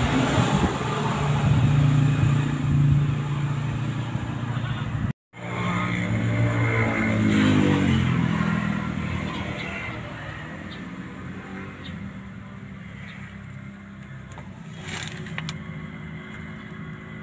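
Vehicle engine running through its exhaust, revved and then falling back as the revs drop about six to eight seconds in, settling to a quieter steady idle. There is a brief break in the sound about five seconds in.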